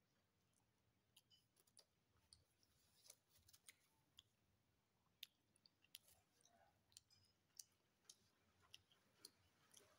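Faint, irregular mouth clicks and smacks of a person chewing chicken satay, a couple of sharp ticks a second.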